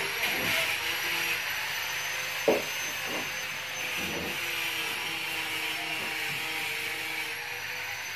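Steady hum of a running machine with a thin high whine, and a sharp knock about two and a half seconds in, followed by a couple of softer knocks.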